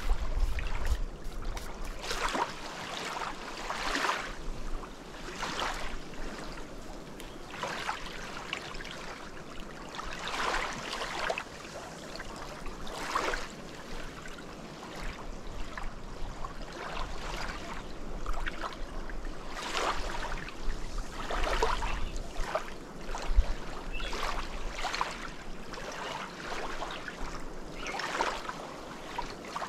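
Small, gentle waves lapping on a sandy shore, each swash washing in every few seconds.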